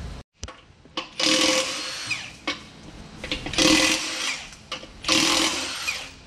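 Handheld cordless power tool run in three short bursts, each about half a second to a second long, with a few clicks between them.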